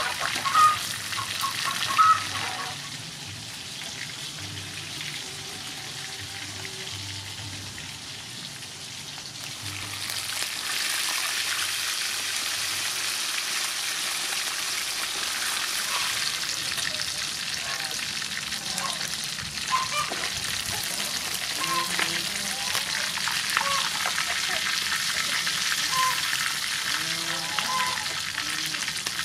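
Fish deep-frying in soybean oil in a wok, a continuous crackling sizzle. Two sharp knocks come in the first two seconds. The sizzle grows louder about ten seconds in.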